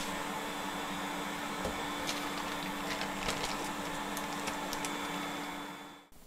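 Steady whirring of a small electric fan or blower with a low hum, a few light clicks over it; it fades and cuts off about six seconds in.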